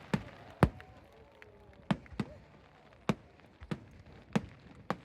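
Aerial firework shells bursting in an irregular series of about eight sharp bangs, the second, under a second in, the loudest.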